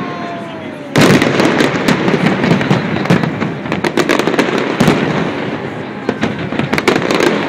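Aerial fireworks display bursting overhead: a loud bang about a second in, then a continuous dense crackle of bursting shells and pops.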